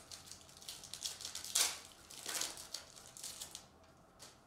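Plastic wrapper of a Topps baseball card pack being torn open and crinkled by hand: an irregular run of crackles and rustles, the loudest about one and a half seconds in.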